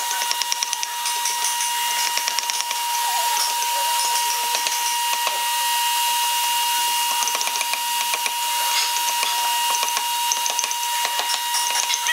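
Wood-carving chisel being struck by a wooden mallet in repeated quick light taps, cutting into a hardwood relief panel. A steady high-pitched whine sounds underneath.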